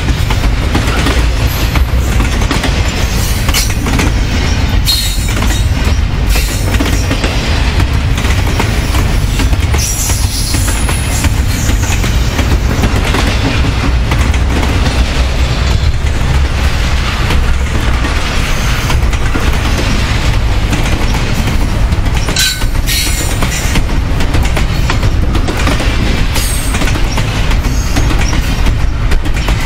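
Double-stack intermodal well cars of a long freight train rolling past at track speed: a loud, steady rumble of steel wheels on rail with repeated clicking over the rail joints. A few brief high-pitched wheel squeals come and go.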